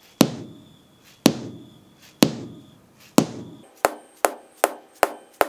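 Rubber mallet striking a car windshield again and again: four firm blows about a second apart, then a quicker run of lighter taps, about two and a half a second. The blows are spreading an existing crack in the glass.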